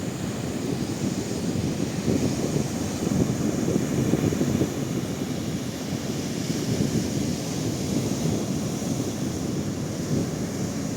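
Wind rumbling on the microphone mixed with the steady wash of sea waves.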